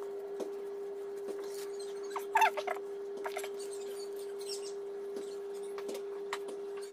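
A steady hum with faint crinkles and taps of plastic film as thin pastry is rolled by hand. About two and a half seconds in, a short animal call rises and falls once.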